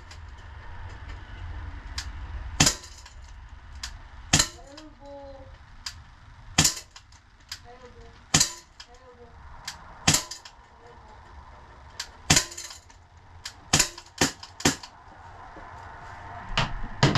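Smith & Wesson CO2-powered BB pistol firing about ten sharp shots, irregularly spaced a second or two apart, into a BB trap.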